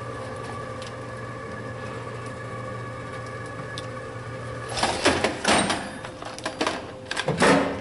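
Rottler S85A cylinder-head surfacing machine humming steadily with several held tones, powered up. About five seconds in come a few loud bursts of noise, the loudest near the end.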